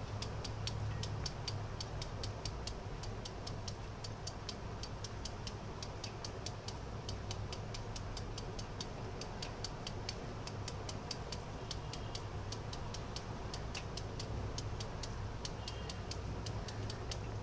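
Knife blade cutting quickly through a beetroot held in the hand: crisp, even ticks about four a second, over a low steady hum.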